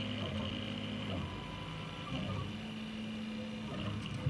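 Prusa i3 MK3S 3D printer printing: its stepper motors whine in low steady tones that change pitch every second or so as the print head moves, over the steady whir of its cooling fans.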